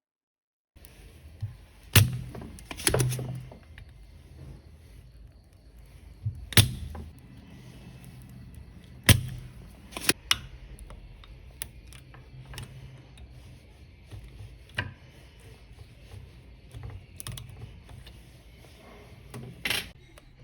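Irregular knocks and clicks of small tools and hard parts being handled and set down on a workbench, with a low steady hum underneath.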